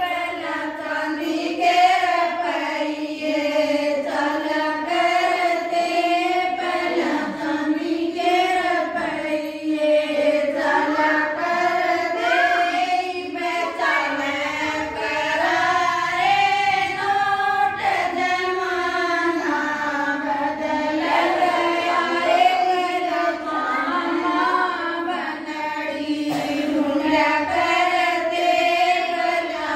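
Women singing a bhajan, a Hindu devotional song, in a continuous, steady melody.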